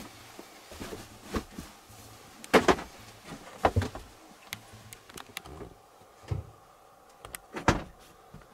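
Dinette seat cushions being lifted and laid down onto the lowered table to make a bed, with about five scattered thumps and knocks as they are set in place.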